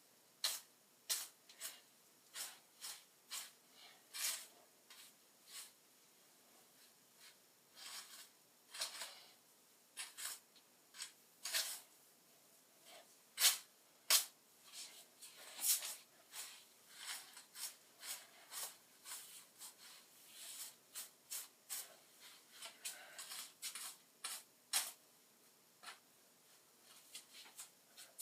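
A hairbrush swept quickly through teased hair, brushing out the backcombing in short, irregular scratchy strokes, about one or two a second with a couple of brief pauses.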